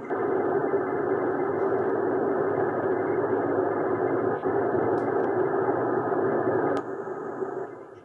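Steady rushing noise with no clear pitch and no highs, played as test background noise for a noise-cancellation demo on a speakerphone docking station. It drops sharply to a much lower level about seven seconds in.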